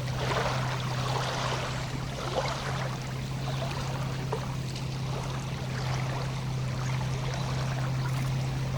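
Lake water lapping at the shore in short, irregular splashes, over a steady low hum.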